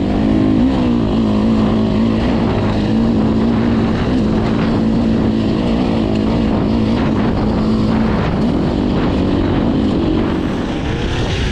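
Dirt bike engine running on a trail ride, its pitch holding fairly steady with small rises and dips and easing off slightly near the end.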